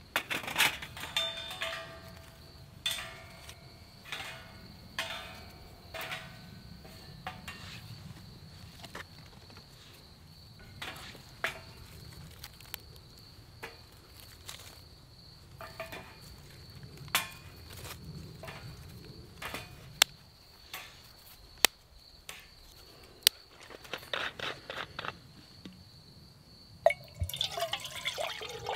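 Thin stainless-steel panels of a folding fire pit clinking and ringing as they are slotted together. Then a scattering of sharp clicks and light knocks as twigs are broken and laid in it. Near the end, water is poured into a cooking pot.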